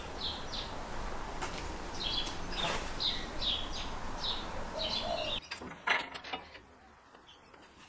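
A bird chirping repeatedly over a steady background hiss. About five seconds in it cuts off abruptly to a quieter stretch with a few faint clicks.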